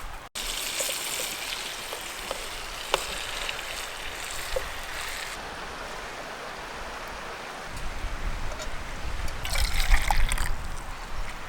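Water pouring and trickling in a steady hiss for the first five seconds or so. Low wind rumble on the microphone comes in at about eight seconds.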